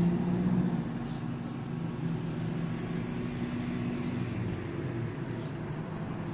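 An engine running steadily nearby, a low hum holding a few steady tones.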